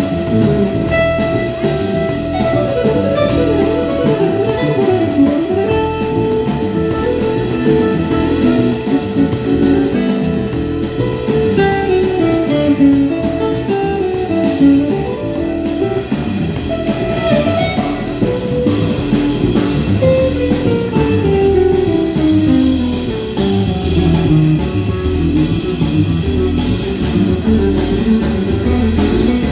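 Instrumental music from a guitar-led trio: a guitar plays fast melodic runs that climb and fall, over drums.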